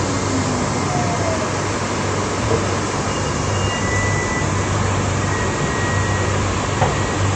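Interior running noise of a New Shuttle 2000-series rubber-tyred people-mover car cruising along its guideway: a steady rumble with faint high whining tones that come and go.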